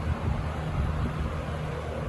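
Coast-Air three-speed box fan running steadily: a low motor hum under the even rush of air from the blades.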